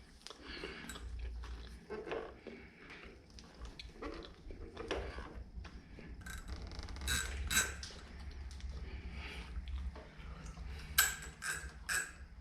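Metal parts and tools clicking and clinking by hand during clutch cable fitting on a motorcycle. There are scattered light knocks, and sharper ringing clinks come in pairs about halfway through and in a quick run of three near the end.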